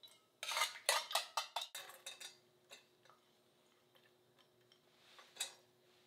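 Metal measuring spoon clinking and scraping against a stainless steel bowl: a quick run of knocks lasting under two seconds, then a few single clinks.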